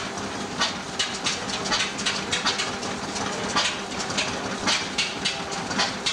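Vintage stationary engines running, with sharp exhaust beats at an uneven rhythm of roughly two or three a second over a steady hum.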